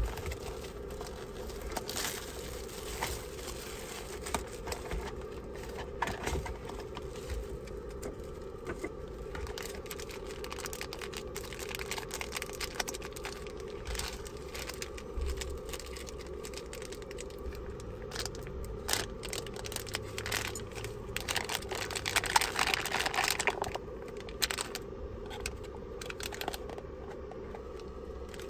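Plastic packaging of an instant udon noodle bowl being torn open and crinkled as it is unwrapped and its packets handled, with irregular small clicks and rustles and a louder stretch of crinkling near the end.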